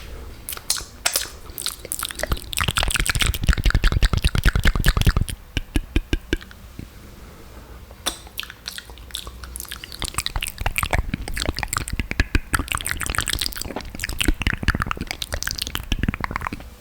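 Close-miked wet mouth sounds: rapid clicks, smacks and crackles of saliva and lips. They come in dense runs, with a quieter pause from about five to eight seconds in.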